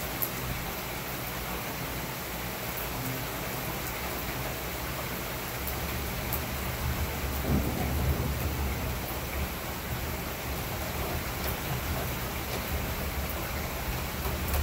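Heavy rain falling steadily on pavement, with sharp drop ticks close by. About five seconds in, a low rumble of thunder builds, loudest near the middle, and keeps rolling to the end.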